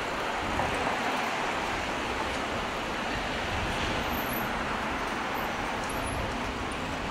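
Steady road traffic noise on a city street.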